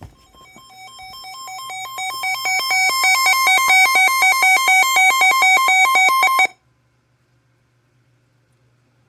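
Electronic alert alarm for a severe thunderstorm warning: two pitches alternating rapidly in a warble, growing louder over the first three seconds. It stops abruptly about six and a half seconds in, leaving a faint low hum.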